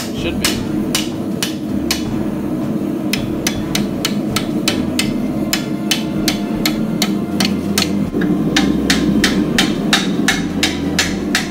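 Hand hammer striking red-hot 80CrV2 spring steel against an anvil, a steady run of blows about three a second with a short pause about two seconds in. The blade's tang is being rolled into a tube for the handle.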